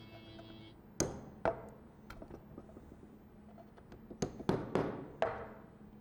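A series of sharp knocks: two about half a second apart, then four more in quick succession near the end, each with a short ringing tail.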